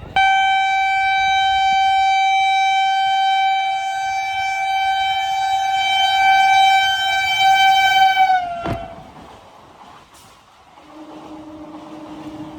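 Electric train's horn sounding one long, loud, steady blast of about eight and a half seconds, dipping in pitch as it cuts off. After it, only a quieter train rumble is left, with a faint lower tone near the end.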